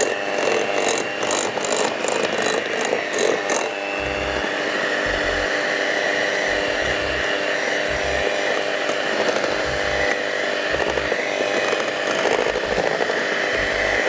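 Electric mixer running steadily, its motor whining as it creams butter and sugar for a cake batter, with some clicking in the first few seconds.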